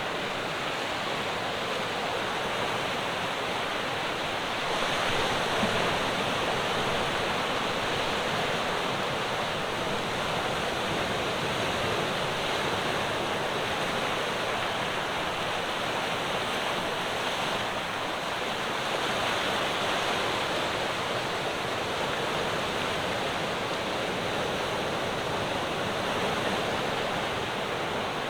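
Ocean surf: waves breaking and washing on a rocky shore in a steady rush, with slow swells in loudness as sets come in.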